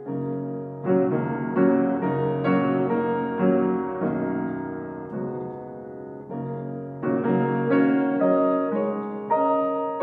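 Background music: a solo piano playing a slow, gentle arranged piece, notes and chords struck about twice a second and left to ring, with a softer lull a little past the middle.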